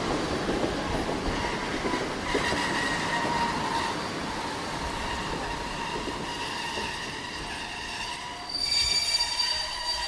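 Tram running on its rails with the wheels squealing against the track: a low rumble at first, a thin steady squeal from about a second and a half in, and a louder, higher squeal of several tones together near the end.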